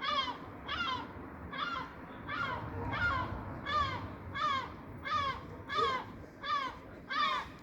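A gull calling over and over, about ten short calls at an even pace of roughly one and a half a second, each one dropping in pitch.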